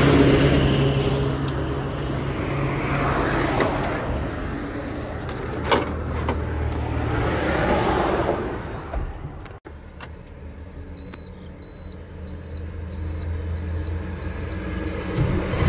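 Road traffic going by on an expressway, vehicles swelling past over a steady low engine hum. Then, inside the truck cab, a dashboard warning beeper sounds regularly, about one and a half short high beeps a second, over the low hum of the engine.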